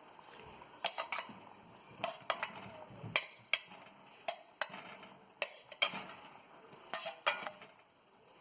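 A spoon clinking and scraping against a cooking pan in irregular knocks, often in quick pairs, as fried whole potatoes are added to a thick curry gravy and stirred in.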